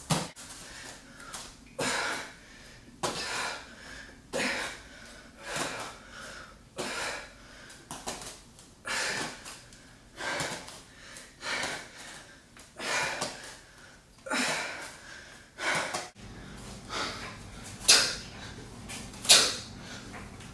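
A woman's heavy, rhythmic exhalations during a hard bodyweight exercise, about one breath every second or so. Near the end come sharper, louder breaths, one with each kettlebell swing.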